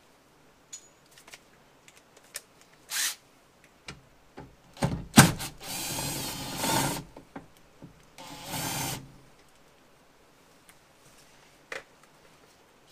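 Cordless drill/driver with a T25 Torx bit spinning out the rear window regulator's screws in short runs, the longest two about a second and a half and a second long. There are handling clicks around the runs and a sharp knock just before the first one, which is the loudest moment.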